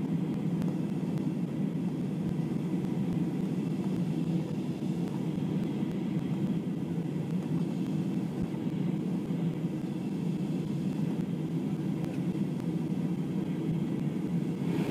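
Airbus A320 jet engines and airflow heard inside the cabin during the climb after takeoff: a low, steady drone that does not change.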